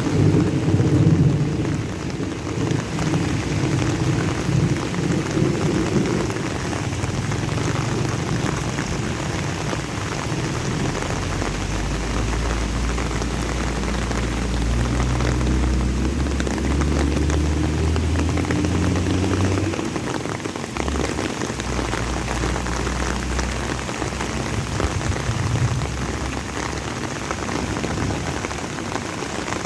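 Steady rain falling and pattering on surfaces, with a low rolling rumble of thunder over the first few seconds and another deep low rumble through the middle.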